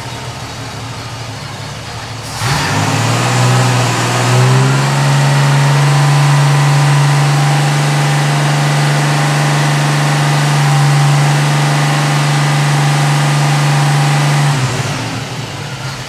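Ford 200 straight-six engine idling, then revved up about two and a half seconds in and held at a steady fast speed for about twelve seconds before dropping back toward idle near the end. It runs evenly while the epoxied braze joint is sprayed, with no change, the sign that the pinhole vacuum leak is sealed.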